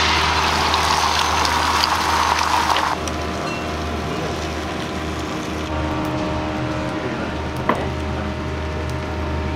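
Beaten egg sizzling loudly on a hot iron serving plate, cutting off abruptly about three seconds in. After that comes a softer sizzle over a steady low hum, with a single clank near the end.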